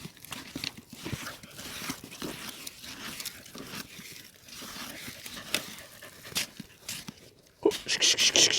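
A dog panting and scuffling at a burrow, with a louder run of quick, rapid strokes near the end.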